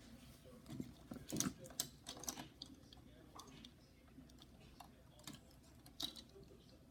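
Faint, scattered light clicks and taps of a plastic Transformers action figure being handled, a cluster of them early and one more near the end.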